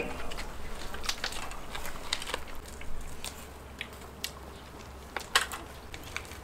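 People chewing and gnawing roasted lamb ribs off the bone: irregular clicks and crunches of varying strength, the loudest about five seconds in.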